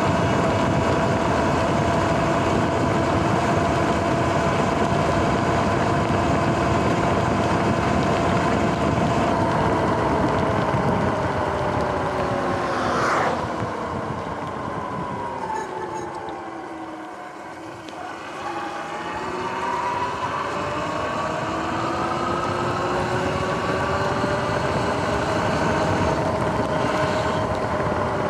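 Electric dirt bike's motor and drivetrain whining under way, with tyre hiss on the wet road and wind on the microphone. About halfway through the whine falls in pitch and quietens as the bike slows, then rises again as it speeds back up.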